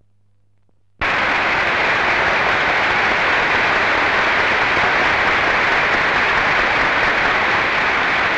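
Audience applauding, steady clapping that cuts in abruptly about a second in after near silence.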